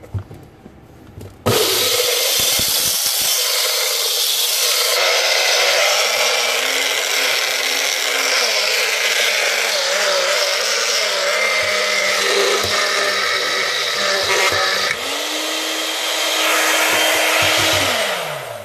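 NuWave personal blender grinding bentonite clay granules into powder, starting about a second and a half in: the motor runs under a loud hiss and rattle of grit, its pitch wavering as the jar is shaken and tipped. Its pitch steps up about two-thirds of the way through and glides down as it spins down near the end.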